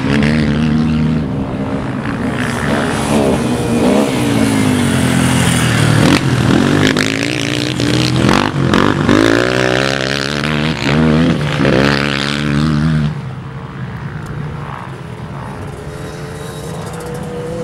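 Racing quad bikes (ATVs) on a dirt track, their engines revving up and down hard through the gears as they pass close by. About thirteen seconds in, the sound drops to a quieter, more distant engine as the next quad approaches.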